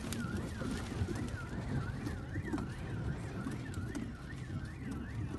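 A car alarm wailing in a steady repeating dip-and-rise, a little over two cycles a second, over a heavy low rumble of tornado wind buffeting the car. Scattered sharp ticks sound through it.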